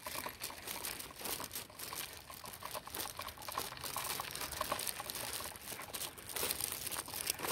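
Footsteps with crunching and crackling underfoot, an irregular run of short crackles.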